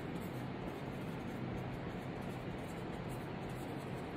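Felt-tip marker writing on a paper notepad: faint scratching strokes over a steady background hiss.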